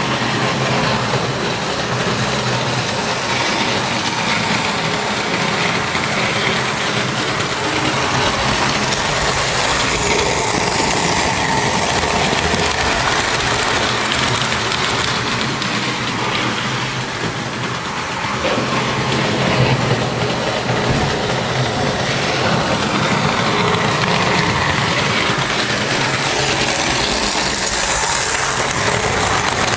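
Märklin model trains running on the layout's metal track: a steady mechanical rattle of wheels and small electric motors, with a low hum underneath.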